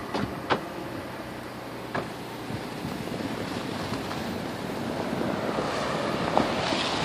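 Kia Soul's engine running and its tyres working through packed snow as the car backs out, the noise growing louder over the last few seconds. A few short clicks in the first two seconds.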